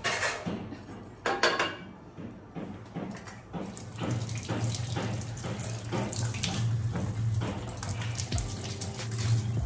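Tap water running into a sink with uneven splashing. There are a couple of louder splashes in the first two seconds, and the flow is steadier from about four seconds in.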